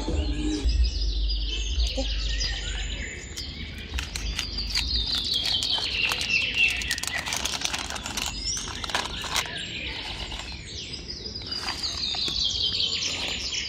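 Small birds chirping, with runs of rapid high notes that fall in pitch, heard three times. There is a low rumble in the first few seconds and scattered sharp ticks around the middle.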